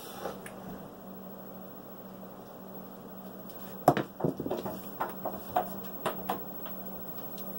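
A pair of dice thrown onto a craps table: a sharp knock about four seconds in as they strike, then a quick run of clicks as they bounce and tumble across the felt, dying out after about two and a half seconds.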